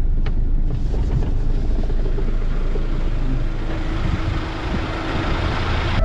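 Moving vehicle heard from inside the cabin: engine and road rumble with wind through the open side window. A steady hum comes in about halfway, and a rushing hiss grows toward the end.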